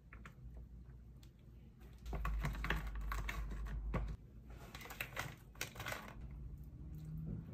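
Close-up crunching and crackling from eating crispy baked chicken wings: a quick run of sharp clicks from about two to six seconds in, with a low rumble under the first half of it.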